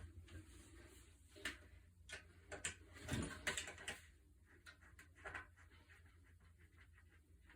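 Scattered light clicks and taps of a tubeless tyre inflator's hose fitting being handled and fitted onto the wheel's valve. The taps come mostly in the first few seconds and thin out toward the end.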